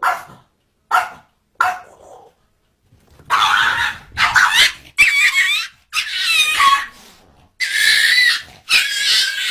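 Small dogs barking: three short, sharp barks in the first two seconds, then a nearly continuous stretch of high-pitched barking and yapping for the rest, as two dogs scuffle.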